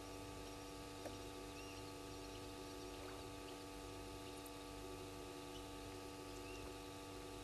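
Faint steady night ambience: a constant hum of several steady tones, with a faint click about a second in and two brief faint chirps.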